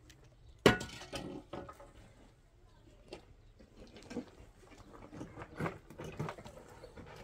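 A sharp metallic clank of a steel pickaxe head striking concrete, just under a second in, followed by scattered lighter clinks and knocks.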